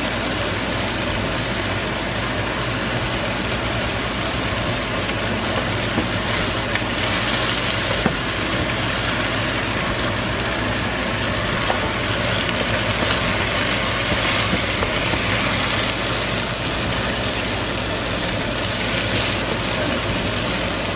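Rice and chicken thighs sizzling in a nonstick frying pan while a spatula stirs them, with a few sharp taps of the spatula against the pan, over a steady mechanical hum.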